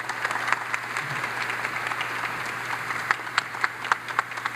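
Audience applauding, with many separate hand claps standing out over the steady patter.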